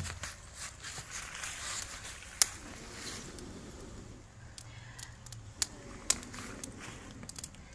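Small firewood cooking fire crackling with a few sharp pops and snaps, while someone blows on the embers at ground level to get it burning.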